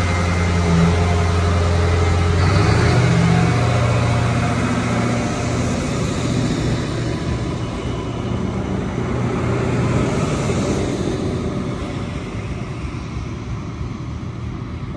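Adelaide Metro 3000-class diesel railcar pulling away and accelerating, its engine running with steady low tones that step up in pitch a few seconds in, then fading as the train recedes down the line.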